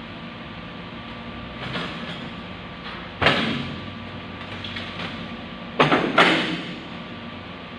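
Loud metal clanks from steel-frame work on scaffolding: one sharp bang about three seconds in that rings on, and two more close together around six seconds, over a steady hum.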